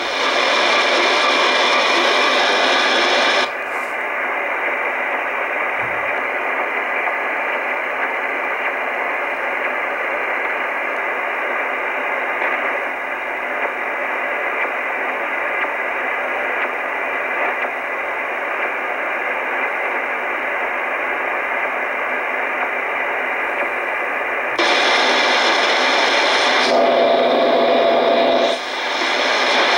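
Shortwave static hissing from an Icom communications receiver as it is tuned across the 22-meter band between stations. The hiss turns duller about three seconds in and brighter again near the end, where a steady whistle sounds for about two seconds.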